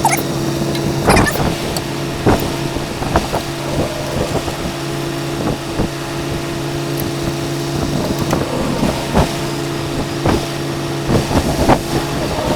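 A steady engine-like hum with scattered clicks and knocks of hand tools on metal parts.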